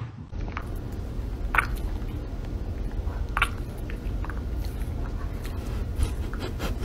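A husky's mouth smacking and licking: a few short wet clicks over a steady low rumble.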